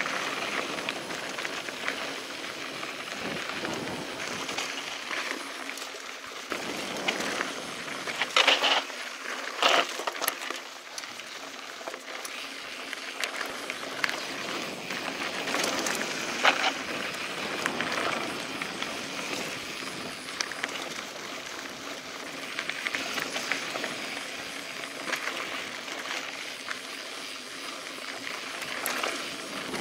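Mountain bike rolling over a dirt and gravel trail: tyres crunching with the bike rattling, and a few sharp knocks over rough ground about a third of the way in and again just past halfway.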